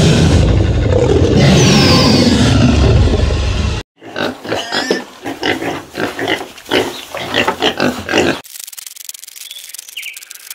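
Animal calls in three clips cut together. First a loud, rough, low call lasting nearly four seconds, then a run of short repeated calls, then a faint hiss with a few high chirps.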